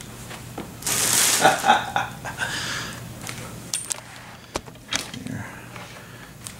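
Plastic wrapping crinkling, loudest about a second in, then a few sharp clicks and light clinks as the plastic-wrapped bass saxophone in its case is handled, over a low steady hum.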